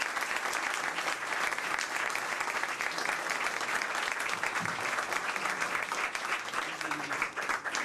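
Audience applauding: dense clapping from many hands, thinning out near the end.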